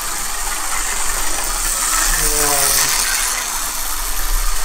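Micro slot cars lapping the track: a steady, high-pitched whir of their tiny electric motors and gears running along the slot.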